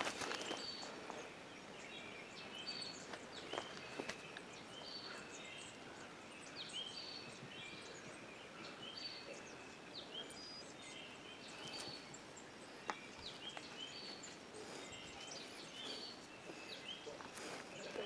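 Small birds chirping and singing in the woods, many short high notes repeated throughout, with a few scuffs of footsteps on the trail.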